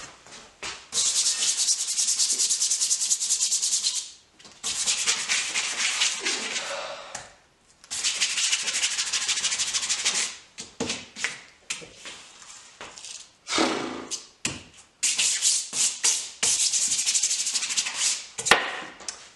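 Dish brush scrubbing hard and fast on a cloth-covered table. It comes in bouts of a few seconds with short pauses between them, and the later bouts are shorter and choppier.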